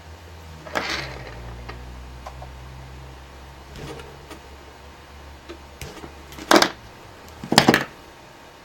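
Insulation being stripped from a short length of red hookup wire: a few sharp snips and clicks, the loudest two close together near the end, over a low steady hum.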